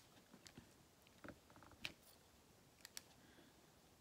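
Near silence with a few faint, scattered clicks and taps from diamond painting: a drill pen setting round resin drills onto the canvas.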